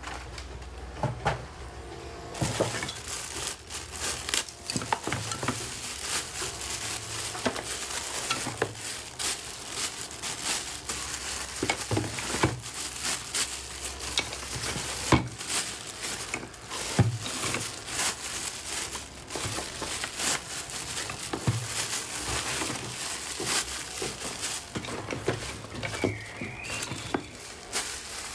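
Plastic bags crinkling and rustling as artificial fern sprays are handled and pulled out of a cardboard box, with scattered sharp clicks and light knocks.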